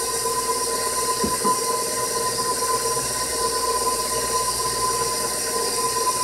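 KitchenAid Professional bowl-lift stand mixer running steadily, its motor giving a constant whine as the flat beater churns thick pound cake batter.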